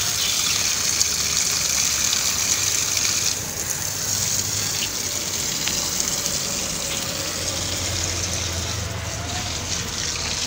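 Steady rushing hiss of water, louder for the first three seconds or so and then softer.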